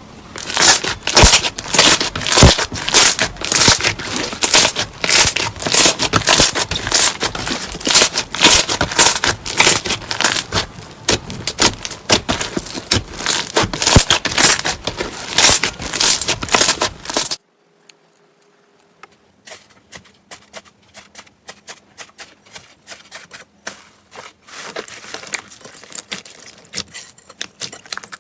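Slime being squeezed and worked by hand, giving dense, fast crackling and popping. About two-thirds of the way through it cuts off suddenly, and a quieter, sparser run of clicking pops follows.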